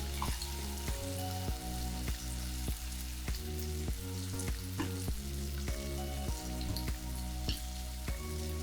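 Chicken strips sizzling and crackling in a hot frying pan, under background music with a steady bass line and notes changing every fraction of a second.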